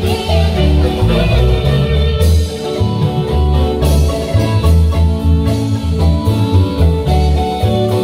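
Marimba band playing dance music: ringing mallet notes over a bass line that pulses in a steady beat.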